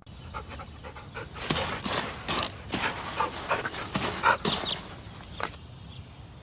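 A dog panting: quick, noisy breaths, about three a second, that trail off after about five seconds.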